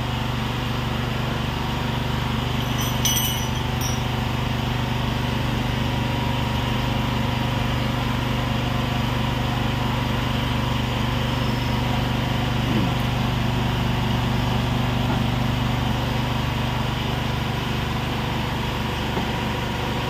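Steady low drone of a running engine, holding an even pitch and level.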